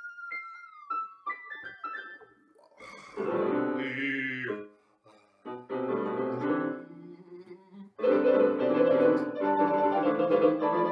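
Digital keyboard played with a piano sound: short phrases of notes separated by brief pauses, then denser, louder sustained chords from about eight seconds in.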